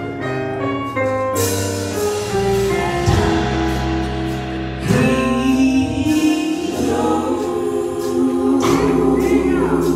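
A women's gospel vocal group singing into microphones with keyboard accompaniment, holding long, wavering notes; the music grows louder about five seconds in.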